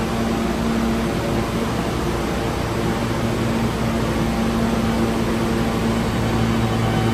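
Steady mechanical hum and rumble on a subway platform: an even roar with a few steady droning tones, with no sudden sounds and a slight swell near the end.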